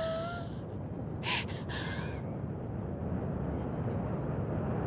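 Low rumble of a Falcon 9 rocket launch reaching the viewing field, steadily growing louder. A short faint voice is heard about a second and a half in.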